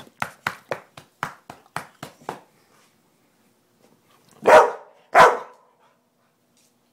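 Pit bull barking twice in quick succession, loud, about halfway through. Before that comes a quick run of short, sharp sounds, about four a second.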